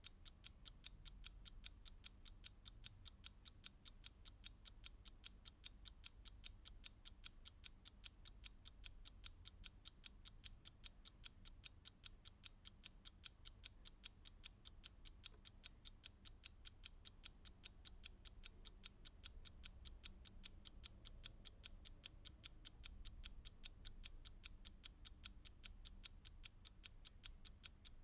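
Mechanical clock ticking steadily, with sharp, evenly spaced ticks.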